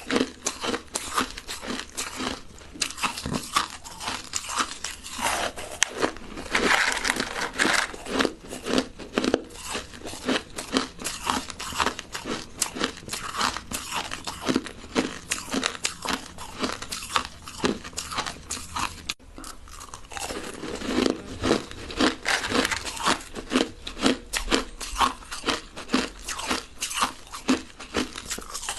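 Close-miked chewing of crushed ice: continuous rapid crunching and crackling as the ice is bitten and ground between the teeth, with a short pause about two-thirds of the way through.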